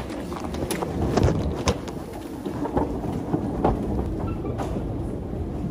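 Escalator running with a steady low rumble, with a few sharp knocks in the first couple of seconds as people step on with their bags.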